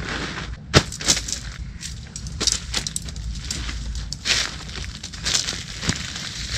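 Rustling of tent fabric and packing with short clicks and clinks as a new tent is unpacked; one sharp click about a second in is the loudest.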